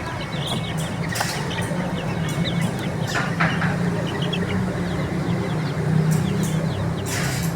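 Many baby chicks chirping in a dense stream of short, high peeps, over a steady low rumble with a few louder noisy swells.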